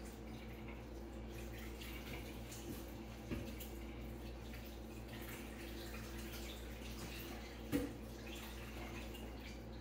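Chicken stock being poured into a pot of roux, a soft liquid sound over a steady low hum, with two light knocks, about three seconds in and near eight seconds in, the second the louder.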